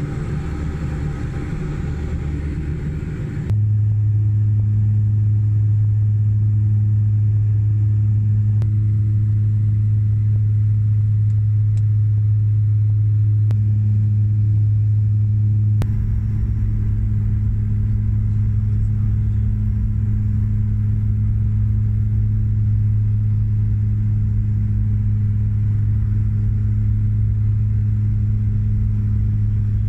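Steady drone of a small twin-turboprop plane heard from inside the cabin in flight: a strong low hum with a few steady higher tones over it. The sound shifts abruptly about three and a half seconds in and again about sixteen seconds in.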